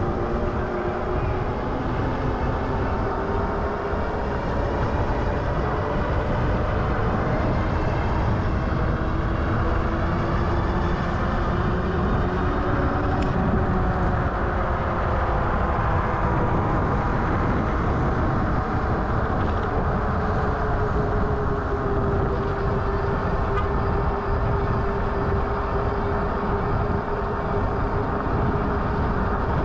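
Riding an electric bike at speed on pavement: steady wind and tyre rumble on the action camera's microphone, with a faint electric motor whine that drifts in pitch over the first half and holds steady after.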